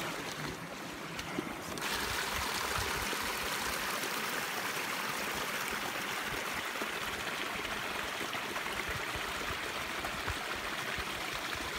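Shallow brook running and splashing over rocks: a steady rush of water that gets louder about two seconds in.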